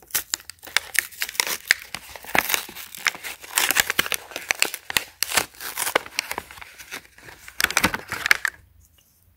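Clear plastic blister pack and its cardboard backing card being pulled and torn apart by hand to free a tube of glue: dense, irregular crinkling and crackling of stiff plastic, stopping shortly before the end.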